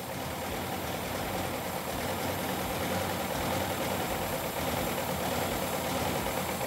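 Carbureted gasoline car engine running steadily at idle on glow plugs in place of spark plugs: the mixture is being lit by the hot plug tips and by detonation rather than by a spark, which the crew calls hot bulb ignition.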